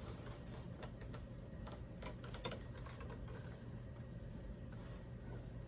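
Irregular light clicks and taps of small plastic doll parts and packaging being handled and checked through.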